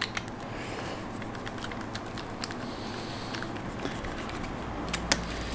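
Faint rubbing and small scattered clicks as gloved hands work an old rubber motorcycle throttle grip, cut open lengthwise, off the handlebar. The sharpest click comes about five seconds in.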